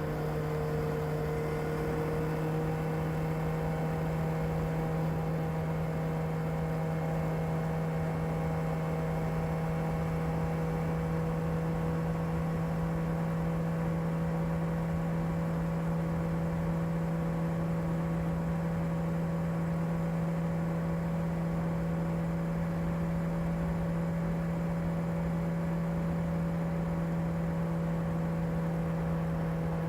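Kawasaki ZR7S's air-cooled inline-four engine running on its stock exhaust at a steady, unchanging speed, a constant hum with no revving.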